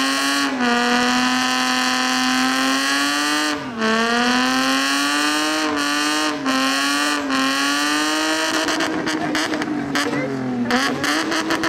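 Car engine held at high revs during a burnout, its pitch dipping and climbing back about four seconds in and again about six seconds in, then turning rougher and noisier near the end.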